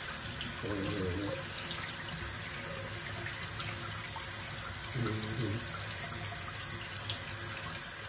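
Tap running steadily into a bathroom sink. A dog makes two short weird noises, wavering in pitch, about half a second in and again about five seconds in.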